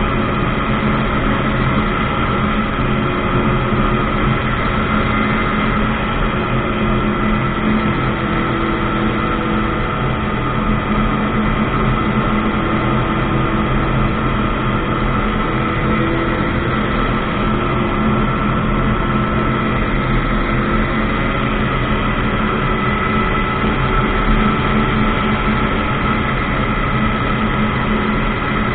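Ultralight aircraft engine and propeller running at a steady, unchanging speed.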